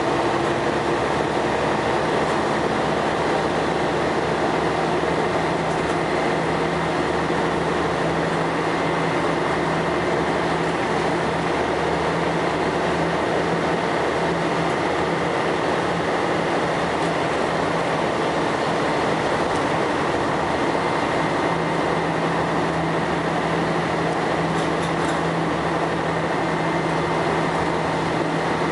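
Scania L113CRL single-decker bus heard from inside the saloon while under way: the six-cylinder diesel running steadily with a steady whine from its ZF automatic gearbox over the road rumble.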